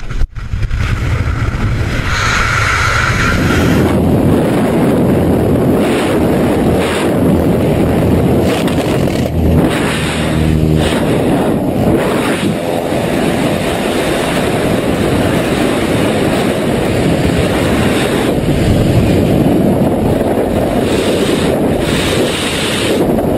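Loud, steady rush of wind over a helmet-mounted camera's microphone during a skydiver's freefall.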